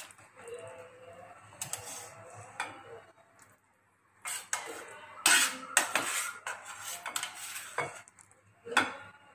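Metal serving spoon scraping and clinking in a steel kadai as curry is spooned out into a bowl. The clatters come irregularly, with a brief lull a little before halfway.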